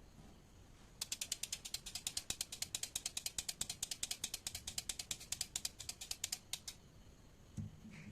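Homemade baby-coconut 'sewing machine' toy being worked, making a rapid, even tick-tick-tick of about nine clicks a second, like a ratchet. It starts about a second in and stops shortly before the end.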